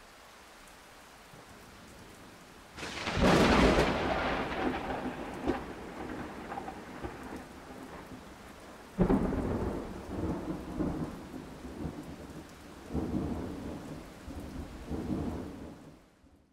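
Thunderstorm: steady rain, with a loud thunderclap about three seconds in that rumbles away slowly, a second sharp clap about nine seconds in, and two lower rumbles near the end before it fades out.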